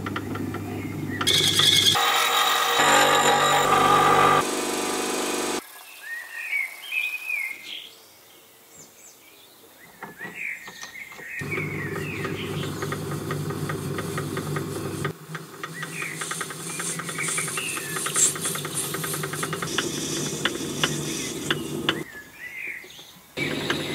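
Myford metal lathe running, its motor and drive giving a steady hum and whine that changes suddenly several times between short edited stretches. Birds chirp in the background, clearest in the quieter gaps.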